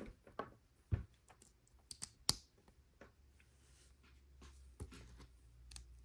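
Plastic LEGO pieces being handled and pressed together: a scattering of short, sharp clicks and taps, the loudest a little over two seconds in.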